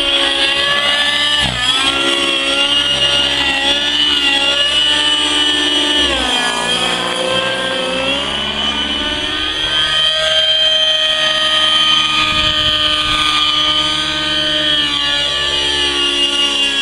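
Nitro-engined RC helicopter flying aerobatics, its engine and rotor whine rising and falling in pitch with the manoeuvres. The pitch sags about six seconds in and climbs back a couple of seconds later.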